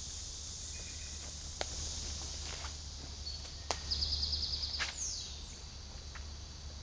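Outdoor woodland ambience: a steady high insect hiss under a low hum, with a few scattered clicks. About four seconds in there is a short, rapid, high trill, followed by a quick falling high-pitched call.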